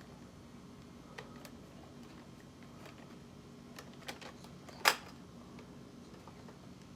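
Faint plastic clicks of a jammed Nerf blaster being handled to clear the jam, with one loud sharp click about five seconds in.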